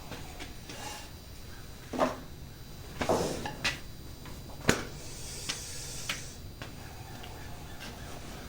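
A few sharp knocks and clanks of hard objects being handled and set down, with a brief rustle in the middle.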